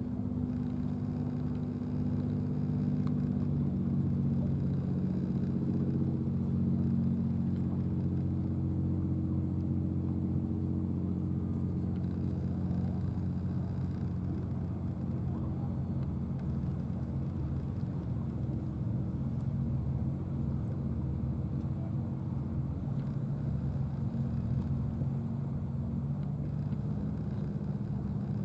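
Low, steady drone of an engine running at idle, its pitch shifting slightly now and then.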